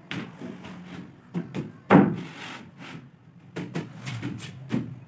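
A plywood panel sliding into a wooden workbench frame: scraping, and a series of wood-on-wood knocks, the loudest about two seconds in.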